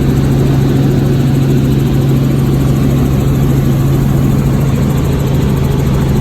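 Helicopter in flight: a loud, steady drone with a strong low hum.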